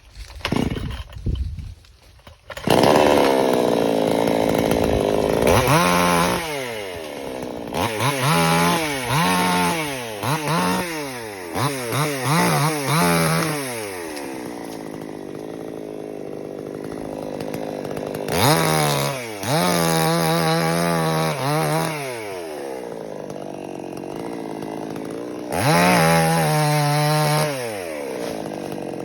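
Chainsaw running and being revved again and again, its pitch climbing and falling back between bursts of throttle, with steadier lower-speed stretches in between.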